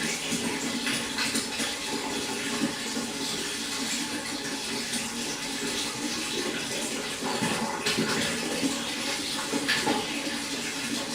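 Running water splashing and trickling steadily into a pond, a continuous gurgling wash with small irregular splashes.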